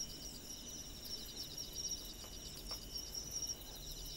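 Faint, steady chirring of crickets, a rapid pulsing trill, with a faint low hum underneath.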